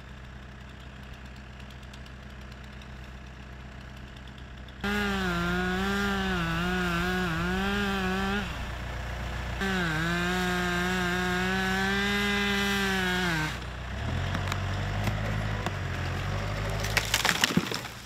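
Stihl chainsaw cutting into a dead, rotted tree trunk: after a few seconds of faint engine hum, the saw comes in at full throttle about five seconds in, its pitch wavering as it works in the cut, in two long runs with a short break. It drops to a lower engine sound, then sharp cracking and splintering near the end as the tree breaks and falls.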